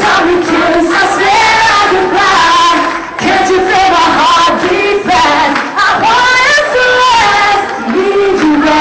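Female lead vocal singing over a live Eurodance backing track, with crowd voices mixed in, recorded very loud and with poor sound quality.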